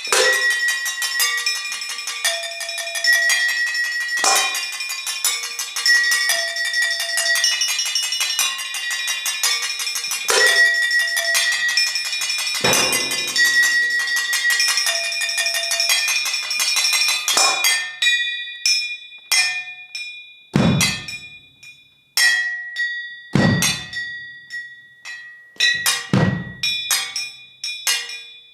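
Struck metal percussion playing a dense, rhythmic pattern of ringing high tones. About 17 seconds in it thins out to sparse, sharp strikes, with a deep drum-like thud roughly every two and a half seconds.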